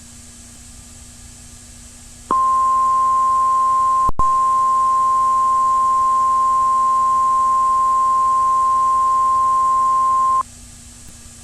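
Weather-radio alert tone: a single steady 1050 Hz warning alarm tone, which starts about two seconds in and holds for about eight seconds before cutting off sharply. A brief click and dropout breaks it once, shortly after it starts. A faint hiss and hum of dead air is heard before and after the tone.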